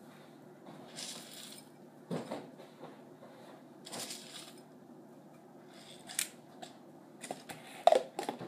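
Dry granola shaken out of a plastic jar into a glass, heard as soft rustling pours and scattered light clicks, with a few louder clicks near the end.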